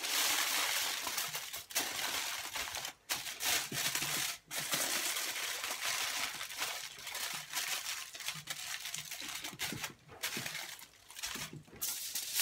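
Aluminium foil crinkling and crumpling as hands fold it and press it tight around a joint of meat. It goes on unevenly, with two brief pauses about three and four and a half seconds in.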